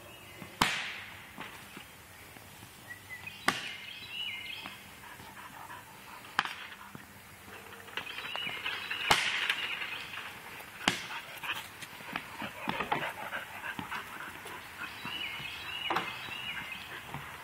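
Hockey stick slap shots: six sharp cracks a few seconds apart as the stick strikes the puck on the ramp's surface.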